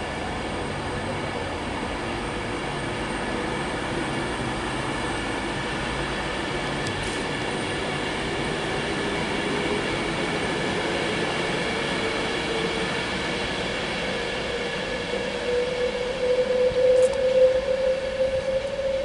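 Virgin Trains Class 390 Pendolino electric train pulling away, its traction motors whining and rising slowly in pitch as it gathers speed. About sixteen seconds in the wheel noise grows louder and uneven as it runs over the junction pointwork.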